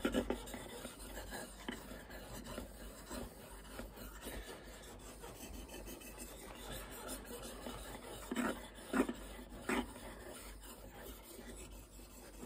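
Fallkniven F1's VG10 steel blade stroked back and forth flat on a water-wetted whetstone, sharpening its second side: a continuous scraping rasp, with a few louder strokes about eight to ten seconds in.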